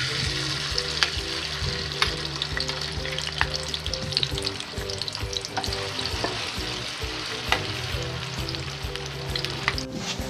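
Tofu cubes sizzling as they fry in hot oil in a wok, with sharp clicks of a metal spatula stirring them.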